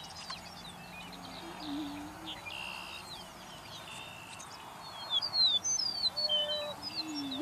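Greater prairie chickens booming on a lek: low, hollow hoots about a second and a half in and again near the end. Other birds' high whistling chirps sound over them and grow loudest in the second half.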